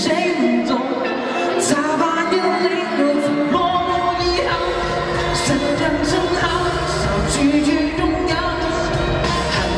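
Asian pop song with a sung melody; a bass line comes in about three and a half seconds in.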